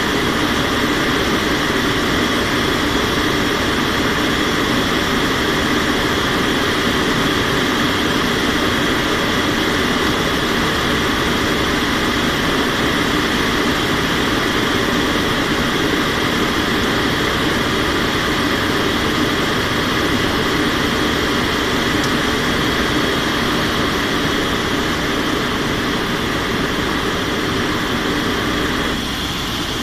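Steady in-flight noise of an aircraft's engines and rushing air, heard from inside the cockpit during descent. It eases slightly near the end.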